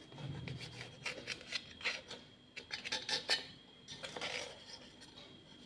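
A knife cutting through a soft plum cake, its steel blade scraping and tapping against the steel plate beneath in a run of irregular light scrapes and clicks.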